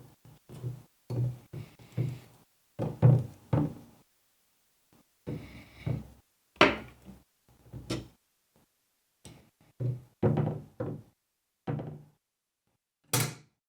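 A run of short, separate knocks and thunks at irregular intervals, like hard parts being handled, set down or fitted by hand, with a pause before a last single knock near the end.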